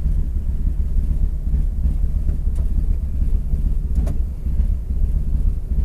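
Rally car's engine idling with a steady low rumble, heard from inside the cabin while the car stands at the stage start. One short click comes about four seconds in.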